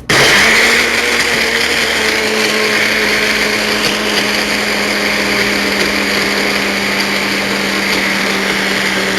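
Small personal blender with an ice-crushing blade lid running, blending ice with milk, coffee and protein powder. It starts suddenly and then keeps a steady, loud whine.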